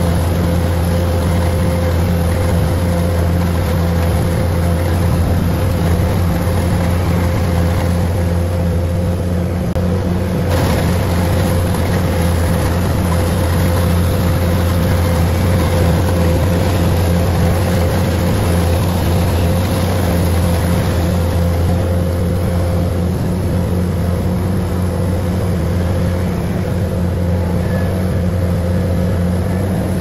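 Kubota DC105 rice combine harvester running steadily under load, its diesel engine and threshing machinery making a continuous low drone with a constant higher whine.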